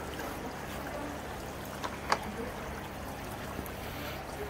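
Decorative water fountain trickling, a thin stream falling from a clay pot onto stones, with a couple of light clicks about two seconds in.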